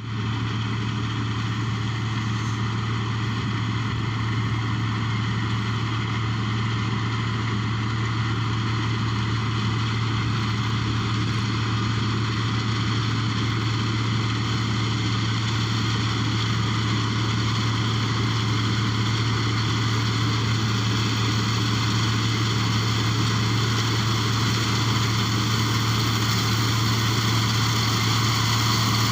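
Kubota rice combine harvester's diesel engine and machinery running steadily, a constant low hum with a whine of evenly spaced overtones, slowly getting a little louder.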